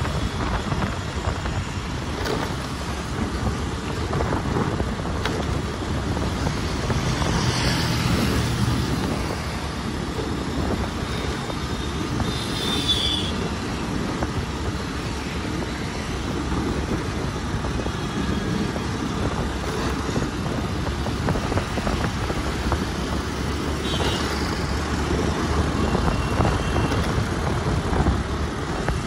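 Steady road and engine noise of a car driving through city traffic, with a few brief high-pitched sounds around the middle and near the end.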